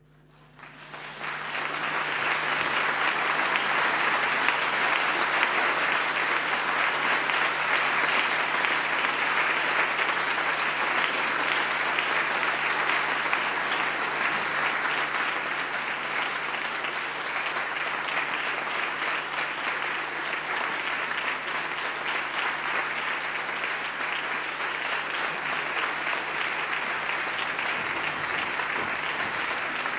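Theatre audience applauding, dense and steady, rising in quickly about a second in.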